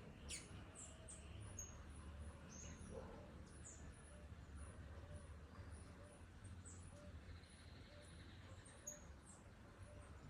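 Faint bird calls: scattered short, high notes that slide downward, the strongest just after the start. Under them runs a steady high pip about twice a second and a low hum.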